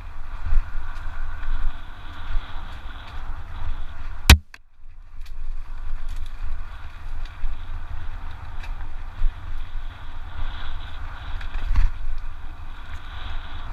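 Giant Reign mountain bike running fast down a rough dirt trail: wind buffeting on the GoPro's mic with the constant rattle and rumble of tyres and frame over the ground. A sharp loud knock about four seconds in, after which the sound almost cuts out for under a second, and a smaller knock near the end.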